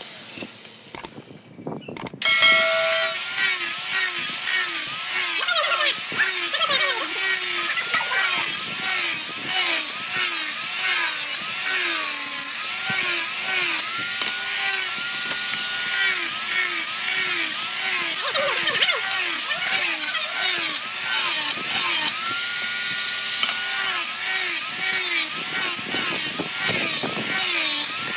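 Electric angle grinder fitted with a sanding disc, sanding a wooden board. It comes in about two seconds in, and its whine repeatedly sags and recovers, about twice a second, as the disc is pushed back and forth over the wood under load.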